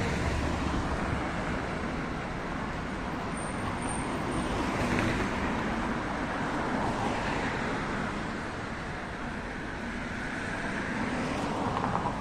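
Road traffic on a busy city street: a steady hum of cars driving past, with a few vehicles swelling louder as they pass.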